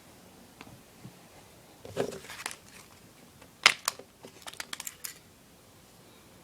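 Small plastic and metal parts of a CO2 BB pistol being handled while it is taken apart: a short rustle about two seconds in, one sharp click near the middle, then a quick run of small clicks.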